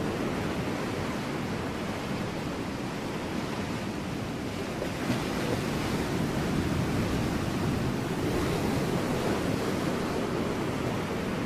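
Ocean waves washing against rocks, a steady surging rush that swells a little partway through.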